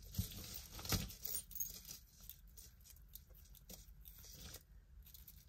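Metal jewelry clinking and jangling as it is handled, with a few sharp clicks in the first second or so and fainter light clicks after.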